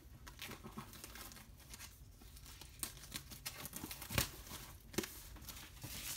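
Cellophane shrink-wrap on a boxed Blu-ray collector's edition crinkling and rustling as the box is handled, with a couple of sharper crackles about four and five seconds in.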